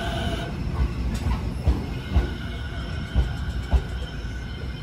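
Electric commuter train pulling out of a station, its wheels knocking over rail joints about twice a second as the last cars pass. A steady whine cuts off about half a second in.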